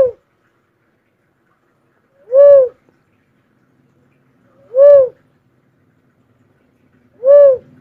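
A bird known in Bicol as the kobawon gives single short hoots at a steady pace, about one every two and a half seconds. There are four in all, each a quick rise and fall in pitch.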